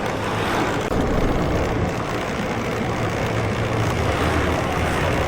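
Street traffic with vehicle engines running steadily, a low hum under a constant wash of noise.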